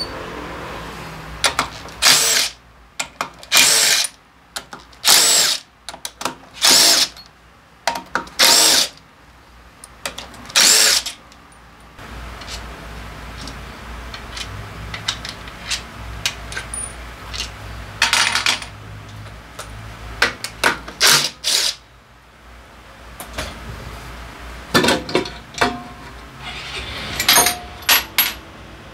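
Cordless power driver running in a series of short bursts, each under a second, backing out the bolts of a scooter's drivetrain (CVT) cover.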